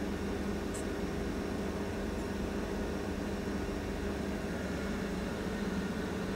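Steady hum of running laboratory equipment, fan or air-conditioning type, with a low even drone over a faint hiss.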